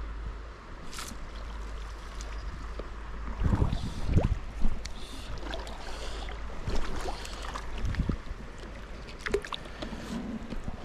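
Small stream running, with a steady low rumble and a few louder low knocks and splashes about four seconds in.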